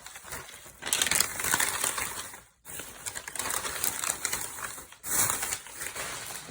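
Plastic toy packaging crinkling and rustling as it is handled and pulled open, in two main loud bursts with quieter rustling between.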